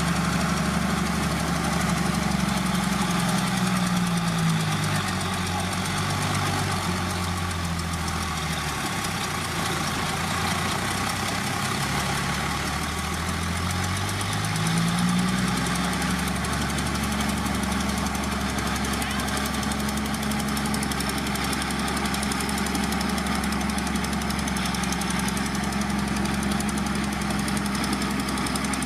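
Heavy diesel engine of an earthmoving machine running. Its revs drop over several seconds, sit low for a few seconds, then climb back about halfway through and hold steady.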